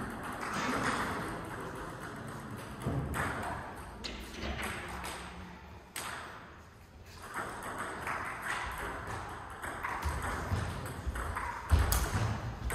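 Table tennis balls clicking off bats and tables at uneven intervals, with a dull thump near the end.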